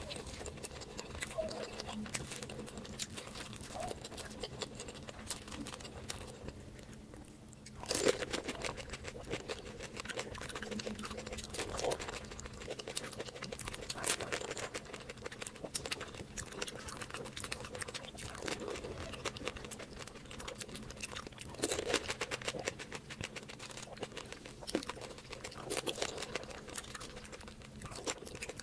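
Close-miked eating: crisp bites and crunching of fried street-food snacks, with chewing between bites. A quieter stretch about six to eight seconds in ends in a loud crunching bite.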